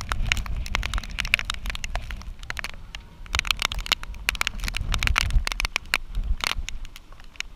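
Raindrops striking close to the microphone as irregular sharp ticks, thickest in a burst about a second in and again in the middle, over a low, uneven rumble.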